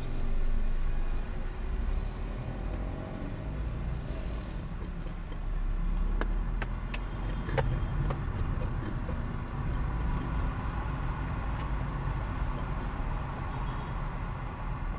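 Car driving, with steady engine and road rumble heard from a dashcam inside the cabin, and a few sharp clicks between about six and twelve seconds in.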